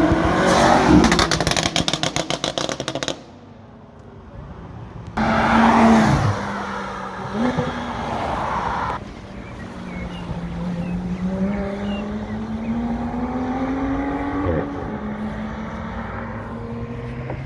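Performance car engines accelerating hard on a city street, heard in several cut-together clips. The first is a loud acceleration with rapid, even exhaust pulsing that cuts off about three seconds in. A second loud pass comes about five seconds in, and after that an engine note rises and falls more gently.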